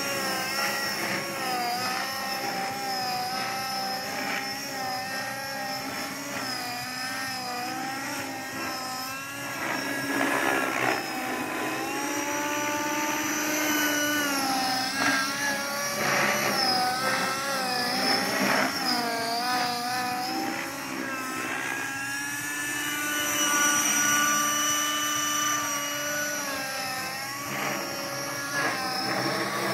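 Align T-Rex 600 radio-controlled helicopter in aerobatic flight: a steady whine from its engine and rotors that rises and falls in pitch through the manoeuvres, swelling louder a couple of times.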